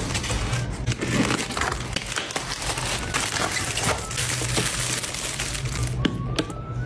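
Dense crinkling and rustling of packaging being handled, with many small crackles. It stops about six seconds in and gives way to a few sharp clicks.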